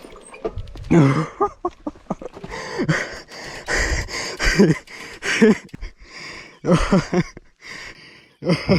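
A man breathing hard and grunting in short, repeated gasps while riding a mountain bike downhill, mixed with sharp clicks and knocks from the bike over rough ground.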